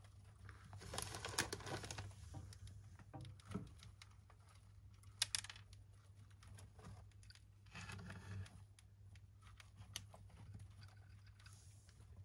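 Young dwarf hamsters scurrying and scratching in wood-shaving bedding: faint rustling and small clicks, with louder bursts of rustling about a second in and again around eight seconds, and a sharp click near the middle.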